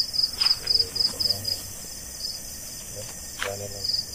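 Crickets chirping in a steady, regular high-pitched pulse, with a brief bit of a man's voice about three and a half seconds in.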